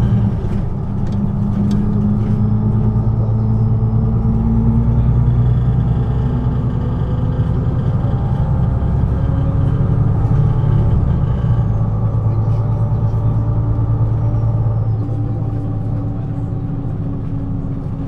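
MAN NG 313 articulated bus's diesel engine running under way: a loud, steady low drone whose pitch drifts up and down slowly and eases off over the last few seconds.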